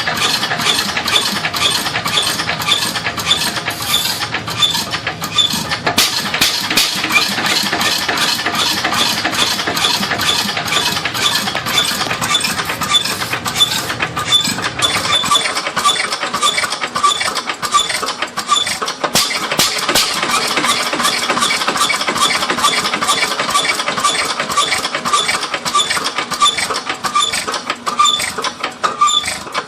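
An old engine running steadily with a regular, rhythmic mechanical clatter. Its low rumble drops away about halfway through while the clatter carries on.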